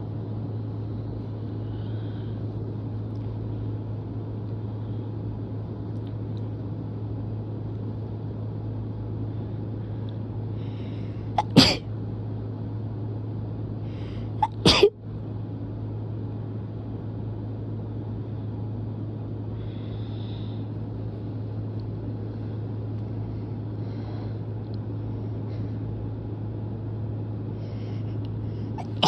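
A person sneezing twice, about twelve seconds in and again three seconds later, each sneeze sharp and loud after a short intake of breath. A steady low hum runs underneath.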